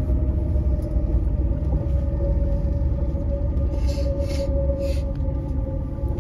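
Öresundståg electric train heard from inside the carriage while running along the track: a steady low rumble with a steady whine over it, and a few short hisses about four seconds in.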